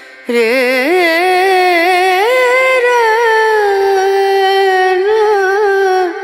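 Background music: a single voice singing a slow melody, holding long notes with a wavering, ornamented pitch. It comes in just after the start and drops away near the end.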